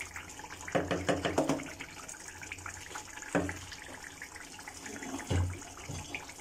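Thick mutton curry bubbling in an aluminium pot on a gas burner, with a wooden spoon stirring and knocking against the pot for under a second about a second in, and two single knocks later.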